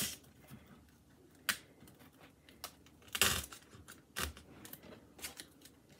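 Scattered small clicks and rustles of foil-lined foam cupcakes being shifted and pressed against a foam dome, with a louder, longer rustle about three seconds in.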